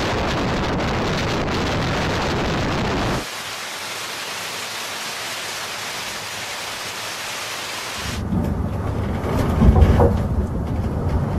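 Storm wind and heavy rain as a steady roar. After about three seconds it changes abruptly to a thinner rain hiss, and in the last few seconds to a deep rumble of wind that swells near the end.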